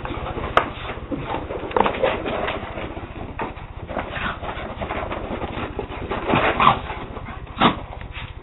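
A West Highland white terrier and a Scottish terrier play-fighting: a fast, irregular string of short dog play noises, with a few sharper, louder ones about half a second in, around two seconds, and twice near the end.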